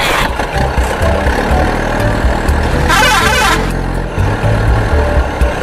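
Heavy truck engine running steadily, with a brief sharp high burst about three seconds in.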